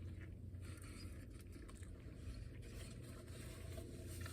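Faint steady low hum with a few soft clicks, and no speech.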